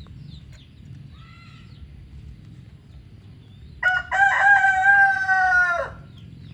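A rooster crows once, a loud drawn-out call of about two seconds that starts about four seconds in and drops in pitch at the end. Faint small-bird chirps come before it.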